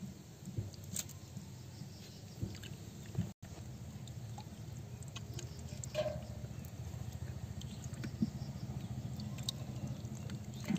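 Trapped fish wriggling and flapping in shallow muddy water and on wet mud, making scattered small wet slaps and splashes over a steady low background noise.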